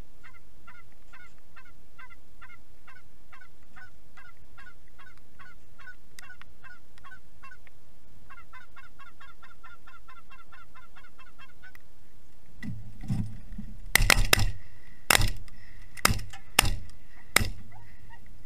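Goose honks repeated at a steady pace, then a faster run of clucking goose calls, followed in the last few seconds by a volley of about six shotgun shots in quick succession.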